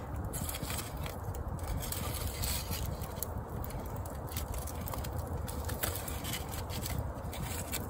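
Campfire coals crackling with frequent sharp pops, and a wooden stick scraping and prodding at the coals and the flat cooking stone.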